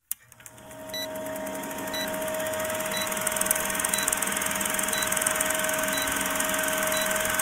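Old film projector running with a rapid clatter, hiss and a steady hum, with a short beep about once a second as the film-leader countdown ticks down. It fades up over the first second.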